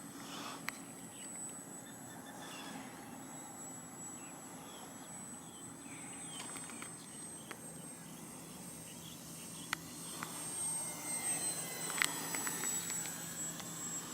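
Radio-controlled electric ducted-fan jet flying at a distance: a faint, steady high whine that swells and bends in pitch about ten seconds in as it passes nearer. A few sharp clicks.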